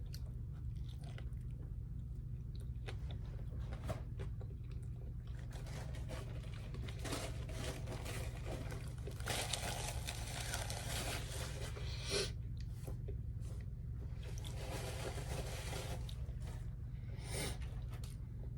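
Close-up chewing and crunching of food, with several louder crunches scattered through, over a steady low hum.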